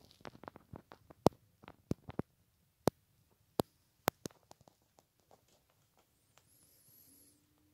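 A run of sharp, irregular clicks and knocks, about a dozen, the loudest about a second in, thinning out to faint ticks toward the end.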